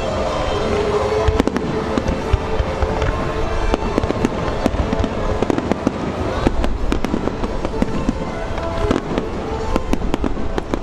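Fireworks finale barrage: shell bursts and crackling come thick and fast throughout, over a continuous low rumble. Music plays underneath with held tones.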